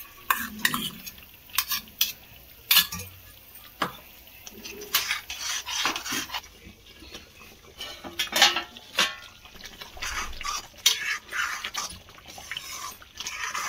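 Metal spoon and ladle clinking and scraping against a steel bowl and a metal kadhai as cream is spooned into a thick curry gravy and stirred in. The clinks and scrapes come irregularly, a few each second.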